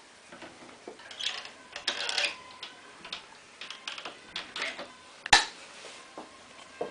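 Scattered light clicks and knocks of handling and movement, then a sharp knock about five seconds in as an interior door is pulled shut by its lever handle and latches.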